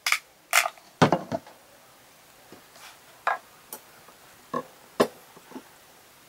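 Hands handling craft pieces and tools on a tabletop: a scattered handful of light taps and clicks, the loudest a knock about a second in.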